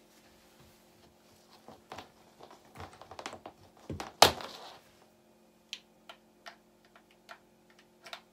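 Handling noise as a bass guitar is strapped on and settled into place: scattered clicks and knocks, one loud knock about four seconds in, then a few light single clicks. A faint steady hum runs underneath.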